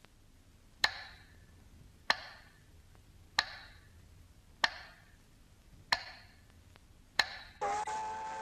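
Six sharp, evenly spaced percussive knocks about 1.3 seconds apart, each ringing out briefly, like a ticking clock; near the end a held chord of several steady tones comes in.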